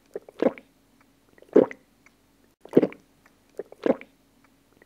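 A person gulping down a drink, swallowing in a steady rhythm of about one gulp a second.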